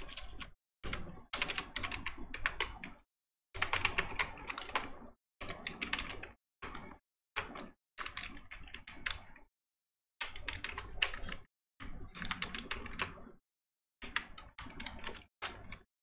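Typing on a computer keyboard: runs of quick key clicks with short pauses between them.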